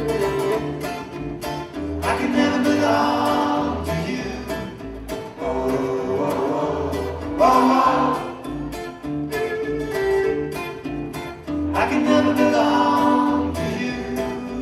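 Acoustic band music: a voice singing over strummed acoustic guitars, with fiddle and double bass.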